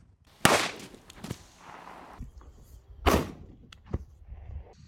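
Two loud explosive bangs about two and a half seconds apart, each with a short echo, with a few smaller cracks between and after. These are firecrackers and butane gas canisters blowing up.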